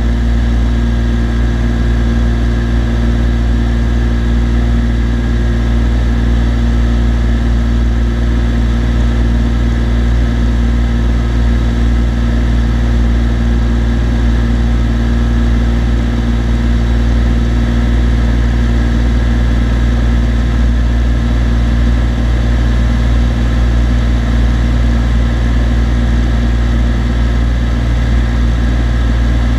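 Cessna TU-206D's turbocharged six-cylinder piston engine and propeller droning steadily in flight, a loud, even hum with a strong low rumble and a steady mid-pitched tone on top.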